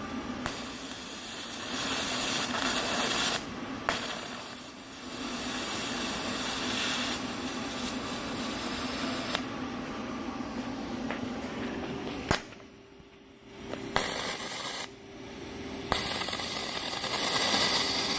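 TIG welding arc from an AHP AlphaTIG 200X, a steady hiss with a buzz under it, broken off twice briefly near the middle and again about two thirds in, with sharp clicks as it restarts. The welder feels the arc isn't getting hot enough on the thin steel.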